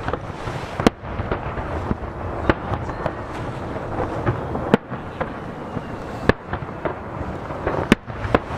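Aerial firework shells bursting over the sea: a string of sharp bangs, the loudest coming every second and a half or so with smaller crackling reports between, echoing off nearby hills. Under them runs the steady wash of waves against a jetty.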